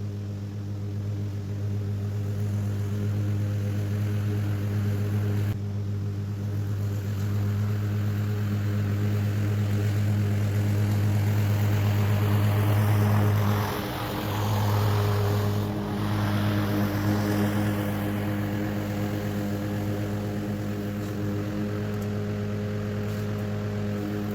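Masport Rotarola push mower's small petrol engine running steadily while mowing, a constant drone that dips briefly twice around the middle.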